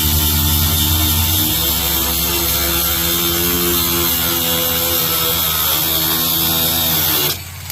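Reloive 16 V cordless 3-inch mini angle grinder motor running steadily with a high whine and hum, then stopping abruptly near the end.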